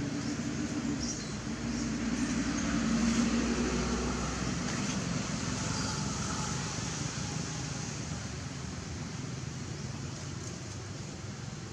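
A motor vehicle's engine hum that swells to its loudest about three seconds in and then fades away, over steady outdoor hiss.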